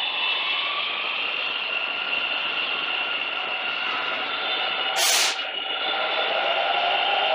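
Bangalore Metro six-coach electric train pulling away from the platform, its traction motors whining steadily over rolling rail noise as it picks up speed. A short hiss comes about five seconds in.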